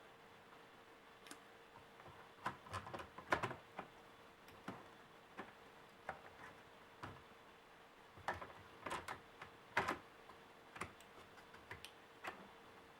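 Scattered light clicks and small knocks of small laptop parts and a tool being handled during disassembly, bunched in two flurries about two and a half seconds in and about eight seconds in, over a faint steady hum.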